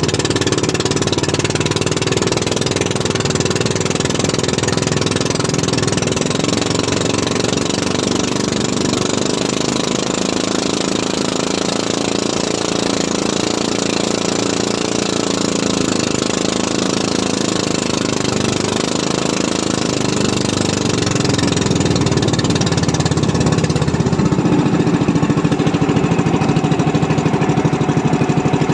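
Fishing boat's engine running steadily, a continuous mid-pitched drone with a knocking beat that grows louder about three-quarters of the way through.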